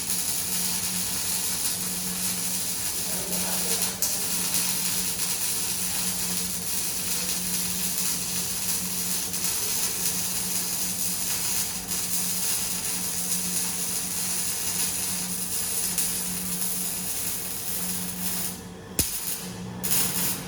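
Semi-automatic (MIG/MAG) welding arc running with a steady hissing crackle over a steady low hum. Near the end the arc stops and restarts in a few short breaks.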